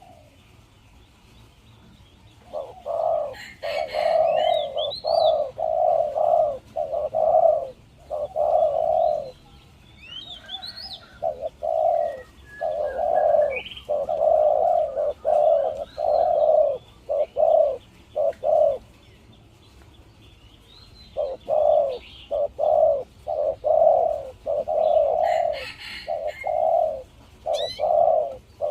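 Spotted dove (a decoy bird) cooing loudly in long runs of quick, repeated coos. It goes quiet for about two seconds in the middle, then starts again. Small birds chirp faintly higher up.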